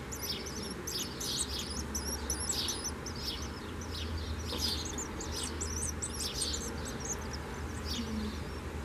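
Very young common swift nestling begging: a rapid, unbroken series of high, thin chirps.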